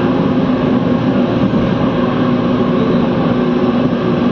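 Mumbai Monorail train running along its elevated track, heard from inside the passenger car: a steady, loud running noise with a constant low hum.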